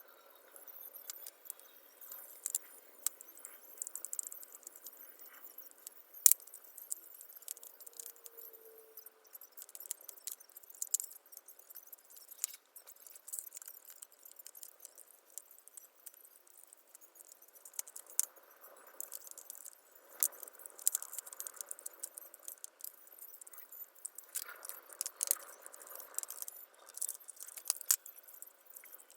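Small hard parts of an electric jigsaw clicking, clinking and rattling irregularly as it is handled and taken apart by hand, with one sharper click about six seconds in.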